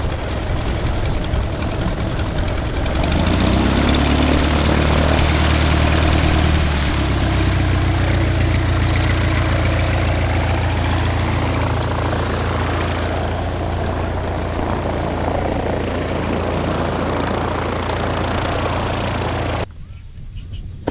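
Single-engine light airplane's piston engine and propeller running at low taxi power. About three seconds in the note rises a little and shifts for a few seconds, then holds steady. The sound cuts off suddenly near the end.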